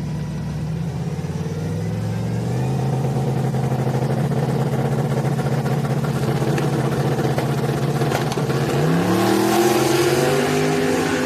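Drag-racing pickup truck engines, including a Chevrolet Silverado's, run at a steady rumble on the start line. About nine seconds in they launch, and the engine note rises sharply as the trucks accelerate hard down the strip.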